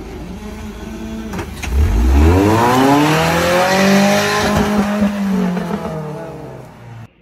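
Rock crawler's engine revving hard under load as it climbs a boulder. The pitch rises sharply about two seconds in, holds high for a few seconds, then falls away before the sound cuts off suddenly near the end.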